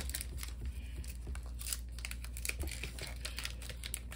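Foil Pokémon card booster pack wrapper crinkling and tearing as it is opened, a dense run of small irregular crackles.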